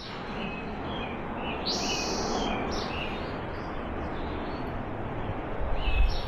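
Small birds chirping, a string of short high calls with a brighter call about two seconds in, over a steady outdoor noise bed.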